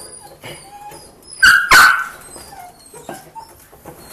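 Belgian Malinois puppies whimpering faintly, with two loud sharp barks in quick succession about a second and a half in.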